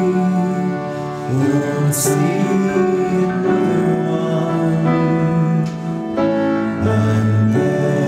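Music from a school students' ensemble arrangement of a Christmas song, held notes moving to new chords every second or so.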